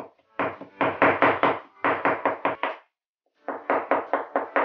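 Chinese cleaver chopping shrimp into paste on a bamboo cutting board: quick, even knocks of the blade on the wood, about six a second, in three runs with brief pauses between them.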